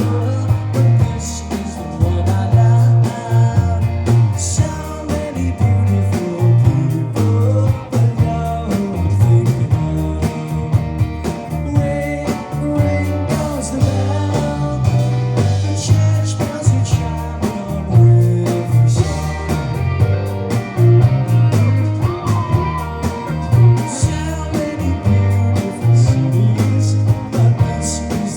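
Live rock band playing a song: electric guitars, pulsing bass and drums with cymbal crashes, and a sung vocal.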